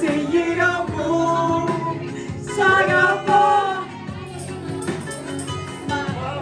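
A woman and a man singing a Greek love-song duet into microphones over amplified backing music, with the woman's voice most prominent.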